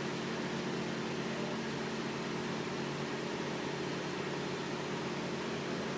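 Steady low machine hum holding a few constant tones, with no knocks or tool sounds.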